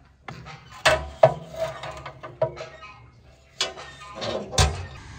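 Metal clanks and scrapes as a baking tray is slid into a wood-burning stove's oven and the stove's metal door is handled: a handful of sharp knocks with a short metallic ring, the loudest near the end.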